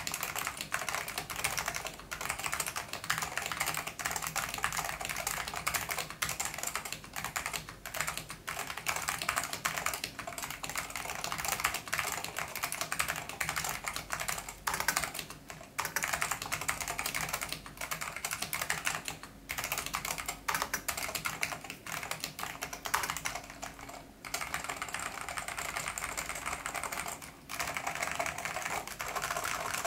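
Continuous fast typing on an SGI Granite mechanical keyboard with linearized orange Alps switches, a stock steel plate and thick PBT keycaps: a dense clatter of keystrokes with a few brief pauses.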